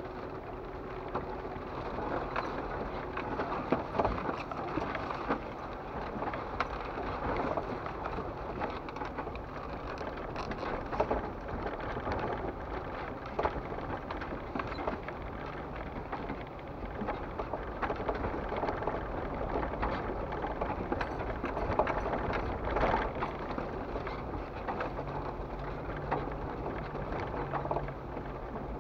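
Jeep crawling over a rocky, muddy dirt trail: a low engine hum under a constant crackle and clatter of tyres on stones and mud, with a few louder knocks. The engine note steadies and rises a little near the end.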